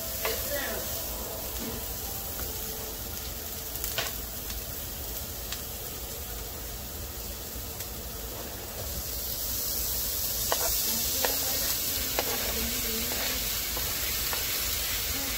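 Diced onions sizzling in a frying pan while being stirred with a wooden spatula. About nine seconds in, the sizzle gets louder as sliced sausage is slid in off a cutting board, with a few light knocks.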